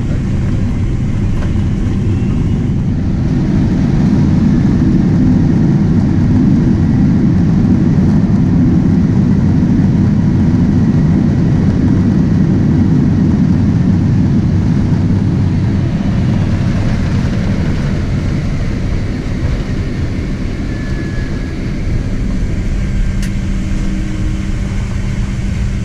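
Cabin noise of a Boeing 767-300ER rolling out on the runway after landing: a loud, steady low rumble of engines and wheels that swells about four seconds in and eases off through the second half as the jet slows.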